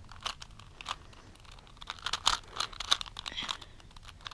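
A 3x3 Rubik's Cube having its layers turned quickly by hand, giving an irregular run of plastic clicks and clacks, while the middle two layers of the solve are being worked.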